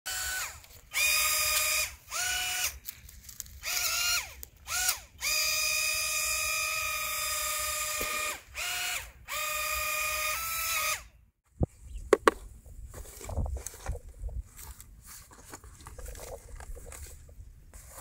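The electric drive motors of a remote-control amphibious car whine in repeated bursts as it is throttled around on water, the pitch rising at the start of each burst and dropping as it stops, one burst lasting nearly three seconds. After about eleven seconds this gives way to a few sharp clicks and rustling as the toy's box is handled.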